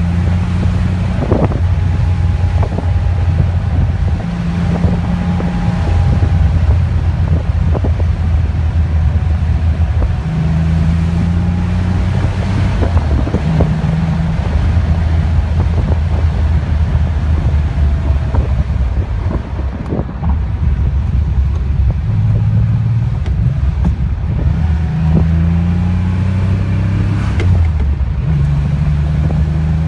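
1981 Porsche 911SC's air-cooled 3.0-litre flat-six engine, heard from inside the cabin while driving on the road. The engine note steps up and down with throttle and gear changes, with a gear change near the end.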